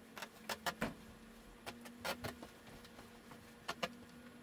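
Scattered sharp clicks and knocks from hand work pulling up old carpet, coming in small clusters of two or three.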